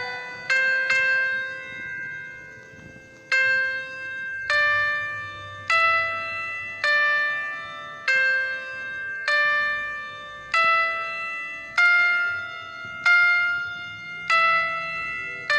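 Background music: slow, bell-like keyboard notes struck one at a time, about one every second or so, each ringing and fading.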